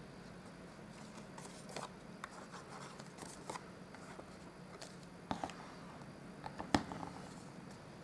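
Card stock being handled and pressed down on a tabletop: faint rustling and sliding of paper with scattered light taps, the sharpest about two-thirds of the way through, over a faint low hum.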